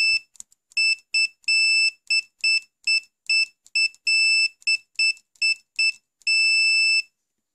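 Winapex 268B clamp multimeter's continuity tester beeping as its test-lead clips are tapped together: a quick, uneven string of high-pitched beeps, mostly short, with a few held for up to about a second, each beep marking the leads making contact.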